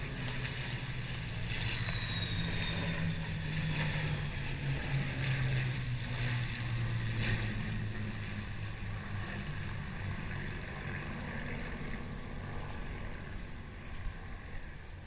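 Formation of propeller aircraft flying past, a steady engine drone that slowly falls in pitch as the planes pass and draw away.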